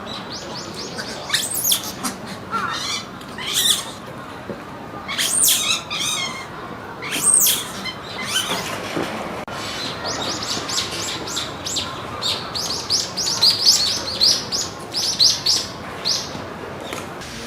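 Monkeys giving high-pitched chirps and squeaks, over a steady background hiss. Scattered sharp calls come first, then a quick run of short chirps at about three to four a second in the second half.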